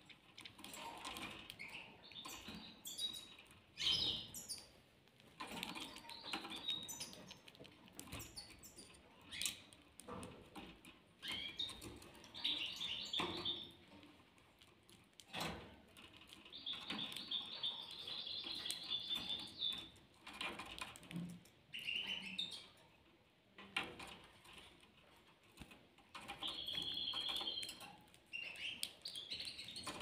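Small caged finches (European goldfinches, a linnet and a canary) twittering in several short trilled phrases, the longest lasting about three seconds midway. Wings flutter and bills make frequent sharp clicks as the birds feed at a seed dish.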